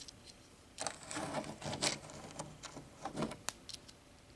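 Small plastic toy wheels and parts of a Blokees model-kit figure clicking and rattling as they are handled and fitted on, in scattered short clicks.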